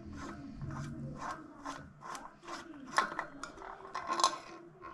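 Repeated scraping and rasping strokes of bicycle headset parts being worked by hand, about two to three strokes a second.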